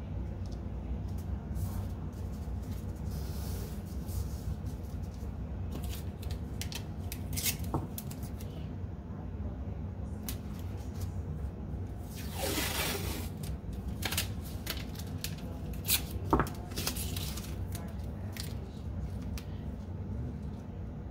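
Blue painter's tape being handled, pulled off the roll and pressed down onto paper and fabric: scattered light rustles and clicks, with a longer ripping sound a little past halfway, over a steady low hum.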